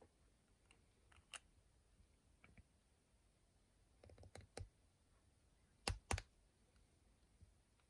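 Small hard clicks and taps of a vintage fountain pen's parts being handled as the nib section is fitted into the barrel: a few faint ones, a quick cluster past the middle, then two sharper clicks close together.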